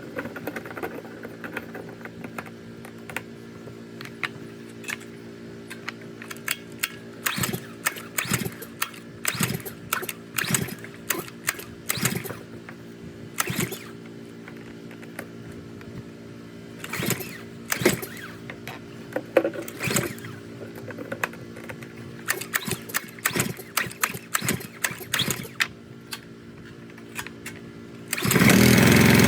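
Repeated short clicks and knocks as the gasoline engine of a Simpson 3100 psi pressure washer is worked at to start it. About a second before the end, the engine catches and runs loudly and steadily, starting now that its carburetor has been cleaned.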